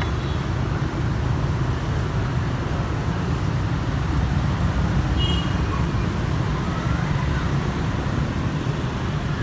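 Steady low rumble of road traffic, with a brief high tone about five seconds in.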